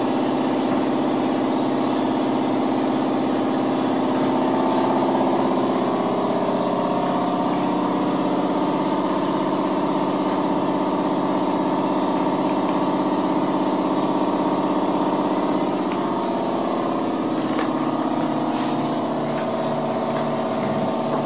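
Steady drone of a machine running, a motor or engine hum made of several steady tones, with a slow, regular pulsing in its low part from about the middle on. A brief hiss comes near the end.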